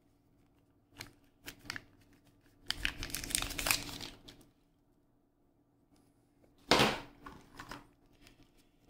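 Thin plastic packaging crinkling and rustling in irregular bursts while small accessories are unwrapped by hand. A longer rustle comes about three seconds in and a sharper, louder crinkle near seven seconds.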